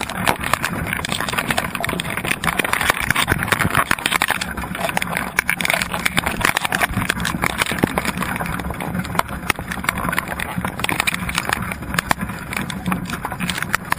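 Dense underwater crackling and clicking heard through a GoPro's waterproof housing, as a heap of Dungeness crabs crawls and scrapes over one another and the wire crab pot.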